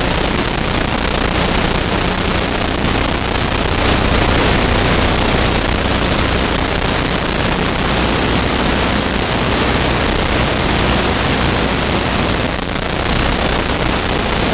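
A loud, steady hiss like static that covers the whole audio, with no distinct events in it. It dips briefly near the end.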